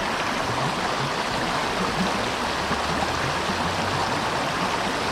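Creek water running, a steady rushing hiss.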